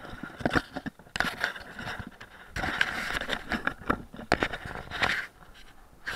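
Camera handling noise: irregular knocks, clicks and scraping against the microphone, with short rustles about a second in, near the middle and near the end. No drone motors are running.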